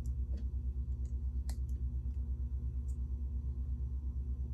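A few soft, scattered clicks of plastic Lego pieces being handled and fitted together, over a steady low hum with a fast, even pulse.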